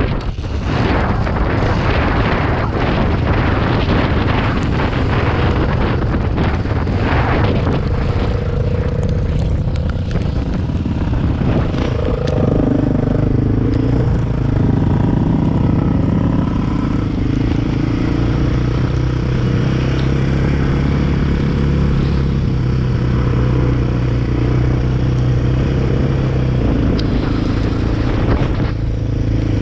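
Quad bike (ATV) engine running as it is ridden, with rough, crackly noise over the first ten seconds or so, then a clear engine note from about twelve seconds in that shifts in pitch and then holds steadier.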